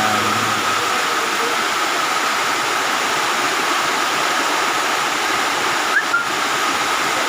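Heavy rain falling, a steady loud hiss, with a short squeak about six seconds in.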